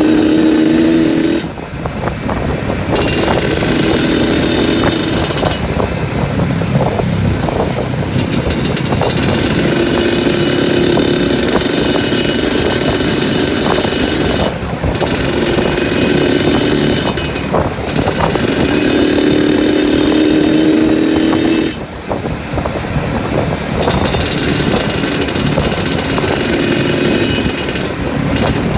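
Two-stroke trail motorcycle engine running under load off-road, its pitch and level rising and falling as the throttle is opened and shut off several times.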